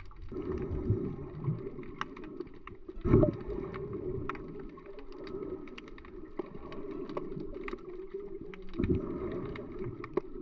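Underwater sound picked up by a snorkeller's action camera: a muffled, steady wash of water with many scattered sharp clicks and crackles, swelling louder about three seconds in and again near the end.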